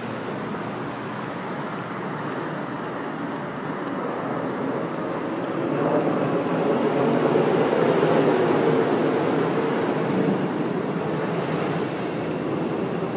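Steady rushing rumble of a passing vehicle that swells to its loudest about seven to nine seconds in, with a faint hum in it, then eases off.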